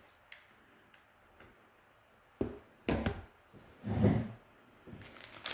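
Quiet room tone, then a few short knocks and rustles of small items being handled and set down on a table, about halfway through and again near the end.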